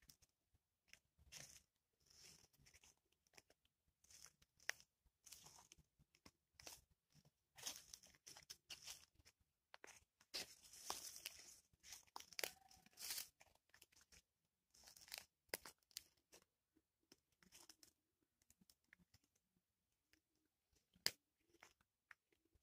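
Near silence broken by faint, irregular crunching steps on wood-chip mulch, busiest around the middle.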